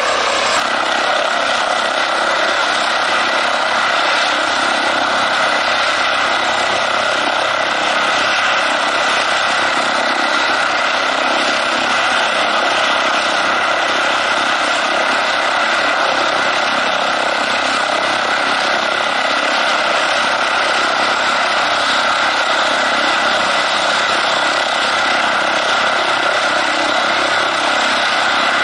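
Airbus ACH145 D3 five-bladed helicopter running on the ground with its main rotor turning, giving a steady turbine and rotor sound with a high whine held at one pitch.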